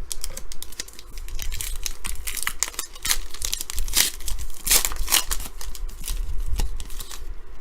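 A foil card-pack wrapper being torn open and crinkled, a dense run of crackling and rustling. It is likely a pack of 2017 Panini Classics football cards being opened.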